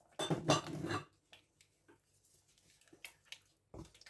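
Wooden spoon stirring thick, chunky tomato sauce in a pan: a wet squelching scrape lasting about a second, then a few faint knocks of the spoon near the end.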